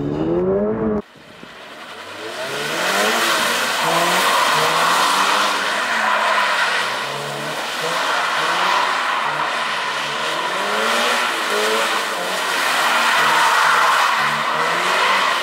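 Toyota GR86's 2.4-litre flat-four engine revving up and down repeatedly as the rear-wheel-drive coupe slides and spins on wet asphalt under power, over a steady hiss and squeal from the rear tyres. The sound starts about a second in and swells over the next two seconds.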